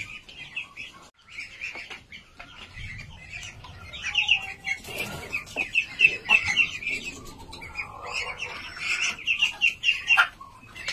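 Flock of young white Muscovy ducks peeping, rapid runs of short high calls, thickest in the middle and again near the end, with a brief rustle of birds moving about five seconds in.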